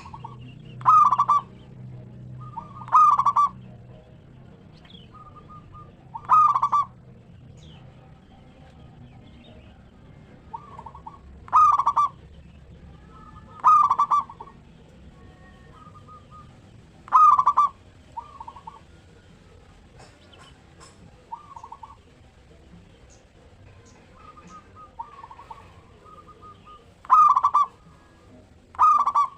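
Zebra dove (perkutut) cooing: short, loud, trilled coos repeating every few seconds, with softer coos in between.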